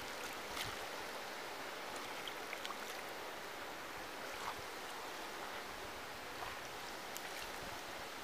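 Pool water splashing softly as a swimmer strokes through it: a steady watery wash with scattered small splashes.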